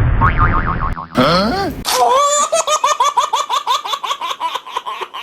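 High-pitched laughter: a fast run of short repeated syllables, about five a second, lasting about three seconds. It follows the tail of a loud rumbling noise that stops about a second in and a short swooping pitched sound.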